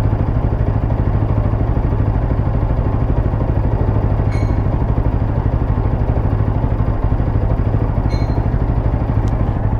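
TVS Apache RTR 200 4V's single-cylinder engine idling steadily, with two brief light ticks about four and eight seconds in. The owner reports an intermittent 'katkat' clatter at idle that is absent while riding and worse on a cold start.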